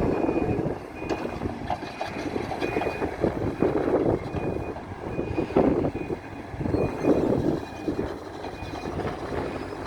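Reversing alarm of a Hidromek 102B Supra backhoe loader, a short high beep repeating a little more than once a second, over the machine's engine and working noise, which swells and falls.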